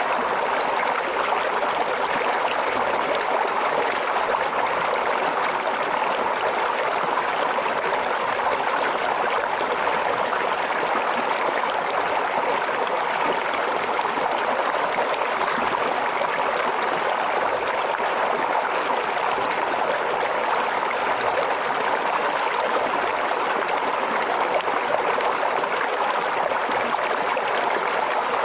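Stream water trickling and splashing steadily, an even rush with no breaks or changes.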